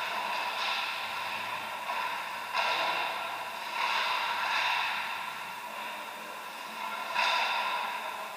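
Ice skates scraping across rink ice, with several sudden surges of hiss that fade out, over a steady arena background hiss.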